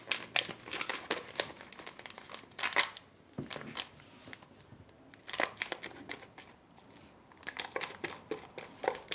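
Sticky, half-set glue slime being squeezed and pulled between hands coated in activator, giving irregular wet crackles and clicks in bunches with short pauses.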